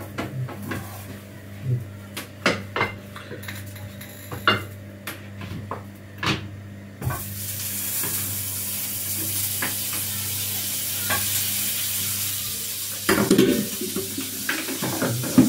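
Utensils knocking and clinking against a frying pan and plate. About halfway through, a hot frying pan starts sizzling steadily, with more clattering near the end.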